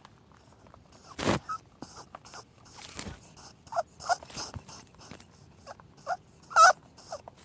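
A small animal gives a series of short, high squeaks and whimpers at irregular intervals, mixed with scratching and clicking, with the loudest squeak near the end.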